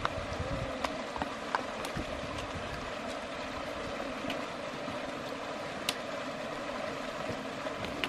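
Small creek running over rocks: a steady rush of water, with a few faint clicks through it.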